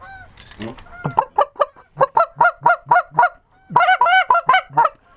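Hand-held Canada goose call blown close by in two fast strings of short honks and clucks, about five notes a second, with a brief pause between them, calling to a passing flock of Canada geese to turn it toward the decoys.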